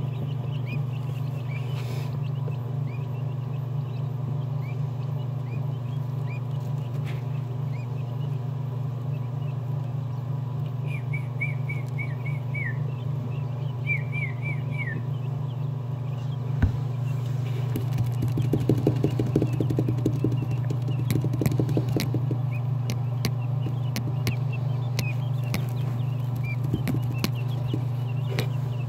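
Newly hatched Texas A&M Coturnix quail chicks peeping: short, falling peeps scattered throughout, with a couple of quick runs of several in a row, over a steady low hum. Around the middle, a few seconds of rustling and light tapping as the chicks move about close by.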